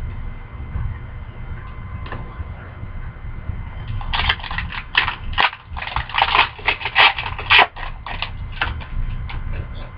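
Trading-card pack wrapper crinkling as it is handled and torn, a run of crackly rustles starting about four seconds in and dying away near the end.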